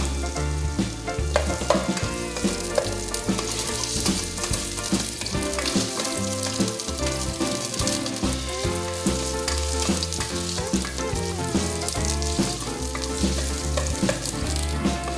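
Cubed potatoes sizzling in hot oil in a pot, with a spatula stirring them. Background music with a steady bass line plays throughout.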